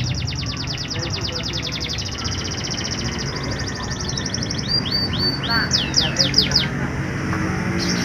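Canary singing: a fast, even trill of high notes for the first few seconds, then a few hooked notes and a run of loud, steeply falling notes about six seconds in.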